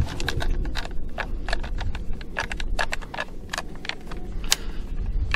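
Irregular metallic clicks and rattles from a semi-automatic 12-gauge shotgun's action and mini shells being worked by hand to clear a double feed.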